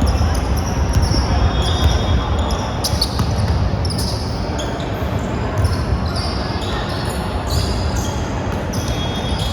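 Basketball game play in a gym: a basketball bouncing on the court, with many short high-pitched sneaker squeaks on the floor and indistinct players' voices.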